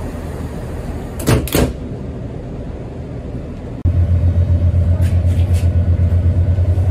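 Class 166 diesel multiple unit departing: the passenger door shuts with two knocks about a second in, then near the four-second mark the diesel engine opens up to pull away, a loud low throbbing drone.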